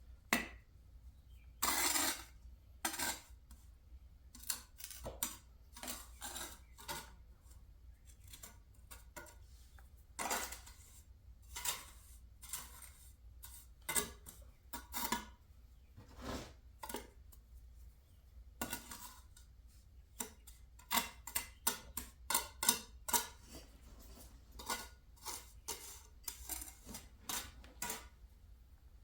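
Steel trowel scraping and clinking against brick and wet mortar in irregular short strokes, spreading and trimming mortar, busiest about two thirds of the way through.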